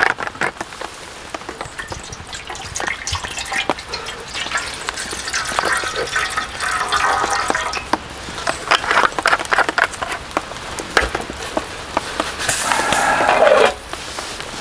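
Liquid being poured into a vessel in two pours: one around the middle, and a louder one near the end that stops abruptly.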